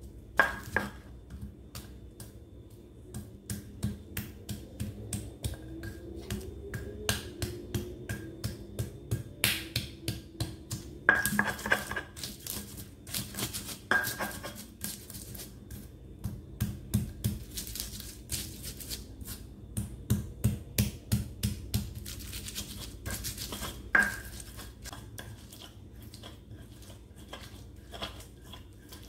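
Stone pestle pounding and grinding raw shallots, garlic, candlenut and turmeric into a spice paste in a stone mortar (ulekan and cobek): a long run of sharp stone-on-stone knocks, about two to three a second, with scraping between them.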